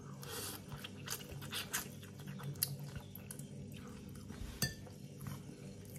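Someone eating a bowl of vegetable ramen: soft chewing, with light clicks of cutlery against the dish and one sharper click near the end.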